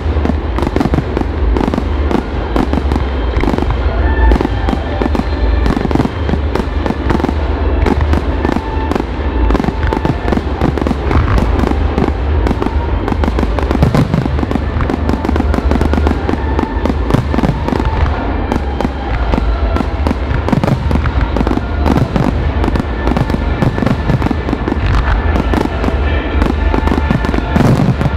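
Fireworks finale barrage: aerial shells launching and bursting in rapid, unbroken succession, many bangs a second over a deep continuous rumble.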